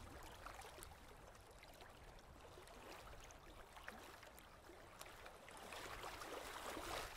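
Faint water lapping and trickling at a pond's surface, with many small splashy ticks. It grows a little louder near the end.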